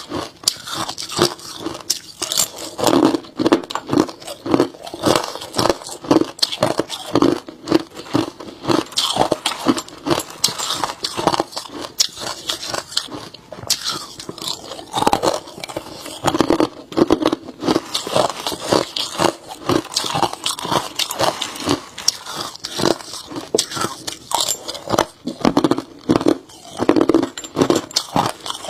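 Chunks of hard crushed ice being bitten and chewed close to the microphone: a rapid, continuous run of sharp crunches and crackles, several a second.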